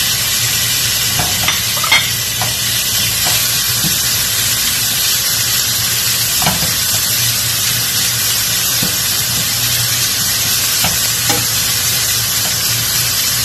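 Raw ground beef sizzling in a stainless steel frying pan while it is stirred with a wooden spatula: a steady frying hiss with a few sharp knocks of the spatula against the pan.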